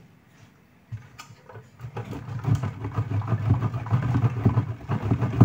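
A bar of glycerin soap being grated on the coarse side of a stainless steel box grater: a rapid rasping scrape of quick repeated strokes, starting about a second in and getting louder.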